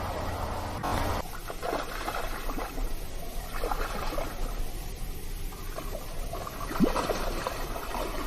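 Running water trickling and gurgling in many small, irregular blips. A steady rushing noise underneath stops abruptly about a second in.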